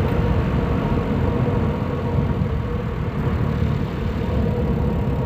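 Daihatsu Rocky's 1.0-litre turbo three-cylinder engine running steadily, heard through a microphone in the engine bay, as the car slows down. A low rumble carries a steady tone and eases slightly in loudness.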